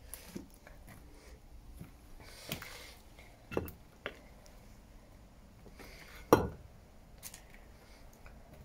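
Footsteps crunching and knocking over loose brick rubble and debris: a few scattered steps and thumps, one much louder knock about six seconds in.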